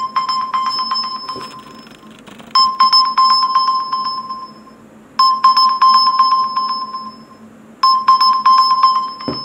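Smartphone sounding its find-my-phone alert, set off from a OnePlus Band: a rapid electronic ringing in bursts of about two seconds, repeated four times about every two and a half seconds, and cut off sharply at the end.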